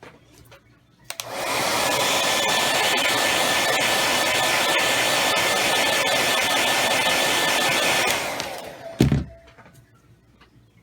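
Handheld hair dryer switched on about a second in, blowing steadily with a faint whine for about seven seconds, then switched off. A short thump follows soon after.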